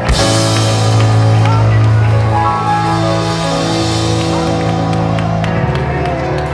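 Live church worship band playing sustained chords over a strong bass line, with a cymbal crash at the start.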